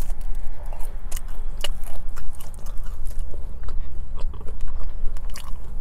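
A person chewing french fries close to the microphone, with frequent small mouth clicks.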